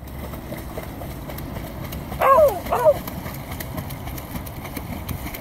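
A dog gives two short, high whining yelps about two seconds in, over the steady splashing of dogs swimming and paddling in the water.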